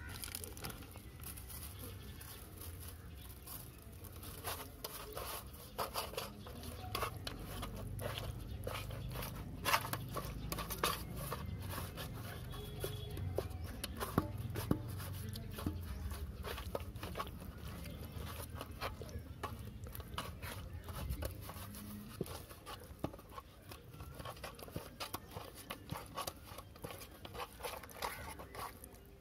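Hands rubbing spice powder into raw catfish pieces on a wide aluminium plate: wet squishing and frequent small clicks and taps of the fish against the metal, over a low rumble.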